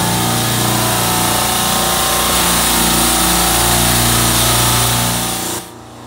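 Refrigeration rack of semi-hermetic compressors running: a loud, steady mechanical hum with hiss. It drops away suddenly near the end.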